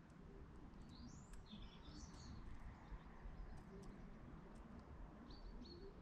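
Faint small songbird calls: a short high twittering phrase about a second in and a few brief chirps near the end, over a steady low background rumble.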